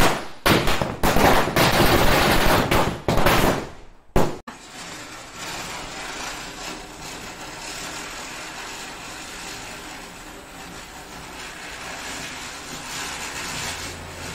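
Firecrackers going off: about four seconds of loud, rapid crackling bangs, then after a short break a ground firework spraying sparks with a steady, quieter hiss and crackle that stops abruptly.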